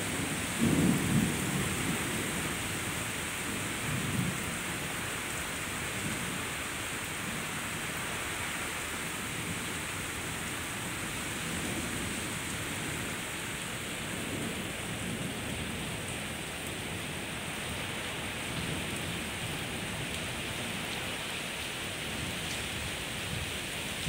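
Steady rain with thunder: a loud low rumble of thunder about a second in, a smaller one around four seconds in, and fainter rumbles later under the constant rain.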